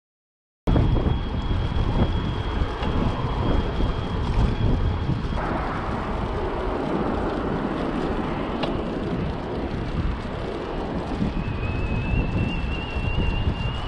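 Riding on a road bike with wind buffeting the microphone and a steady road rumble. About eleven seconds in, a thin whine slowly rises in pitch as the Qiroll QR-E ebike conversion motor starts to drive.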